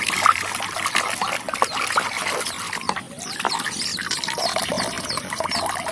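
Water splashing and trickling as muddy toys are washed by hand, with irregular small knocks and clatter.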